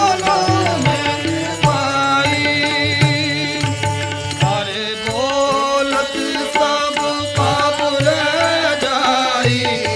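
Sikh kirtan music: a harmonium and tabla, with a voice singing long melodic lines that slide between notes. The tabla strokes keep an even rhythm underneath.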